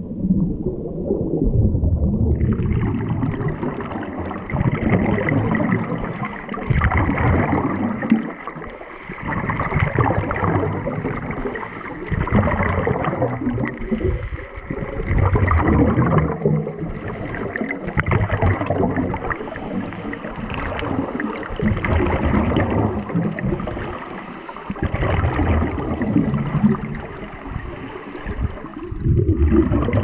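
Scuba divers breathing through their regulators underwater: exhaled bubbles gurgle and rumble in swells about every three seconds, over a steadier hiss.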